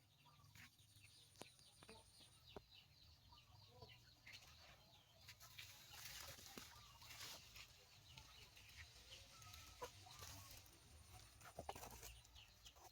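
Faint, scattered short animal calls, chirps and clucks, over a low steady hum.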